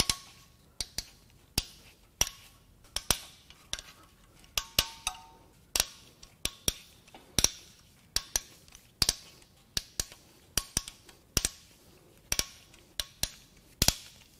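Sharp metallic clicks and clinks, irregular and about two a second, some in quick pairs, from a hand tool working loose the cam cap bolts on a BMW N14 turbo four-cylinder head.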